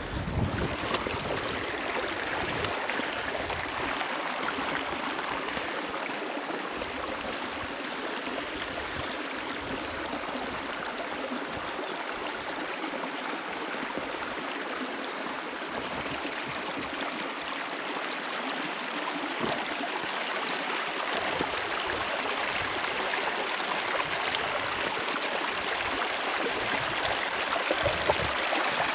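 Stream water rushing steadily over rocks, getting a little louder over the last several seconds.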